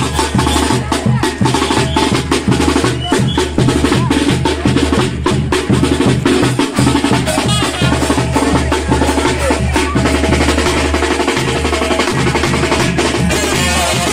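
Percussion-led music: fast, continuous drumming with snare-type rolls over a steady beat.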